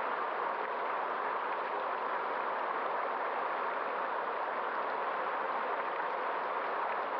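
Steady rushing of a flowing stream, even and unbroken with no surges.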